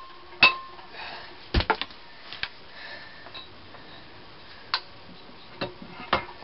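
Hammer striking a Kohler K181 single-cylinder engine during teardown: a sharp metallic tap that rings briefly near the start, a heavier knock about a second and a half in with two quick lighter taps after it, then a few scattered knocks and clinks of metal parts.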